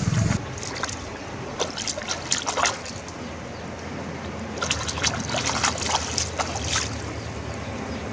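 Water splashing and trickling around a wire-mesh keep basket of caught catfish in shallow water, in two spells of quick splashes, about a second and a half in and again around five seconds in.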